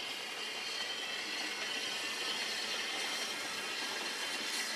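Narrow-gauge Fairlie double-engine steam locomotive running past with its train, a steady hiss of steam that grows slightly louder.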